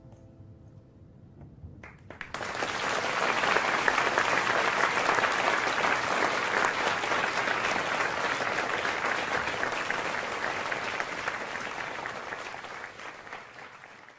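Audience applauding at the end of a piano piece. The applause breaks out about two seconds in, holds steady, and tapers off near the end.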